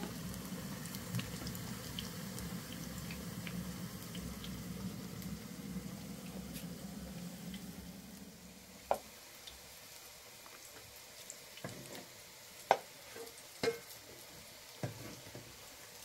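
Eggplant slices frying in oil in a non-stick pan on a gas stove, a steady sizzle that becomes quieter after about eight and a half seconds. Several sharp knocks of a wooden spatula against the cookware follow in the quieter second half.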